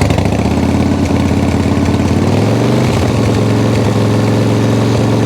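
Harley-Davidson V-twin motorcycle engine running steadily. Its revs rise a little a couple of seconds in, then hold. The engine is running so the charging voltage can be checked: it reads only about 12.7 V, which points to a faulty stator connection.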